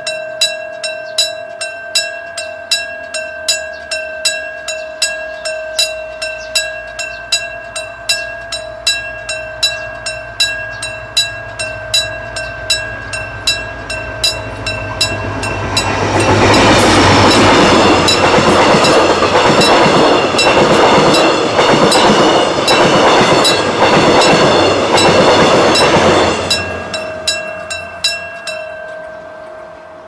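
Railway level-crossing warning bell ringing about twice a second. About fifteen seconds in, a train approaches and runs over the crossing for about ten seconds, its wheels on the rails much louder than the bell. Once the train has cleared, the bell rings on briefly and stops.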